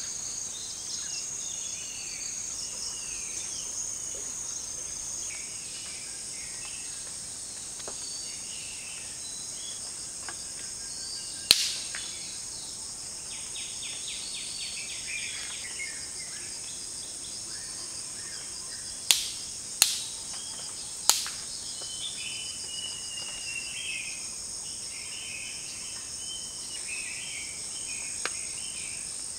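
Forest ambience: a steady high drone of insects with birds chirping and calling throughout. Four sharp clicks stand out as the loudest sounds, one about eleven seconds in and three close together around twenty seconds in.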